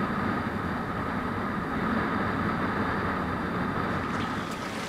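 Motorcycle riding along a road, heard from a camera mounted on the bike: a steady rush of engine and wind noise with a faint steady whine. Near the end it gives way to quieter sound with a few sharp clicks.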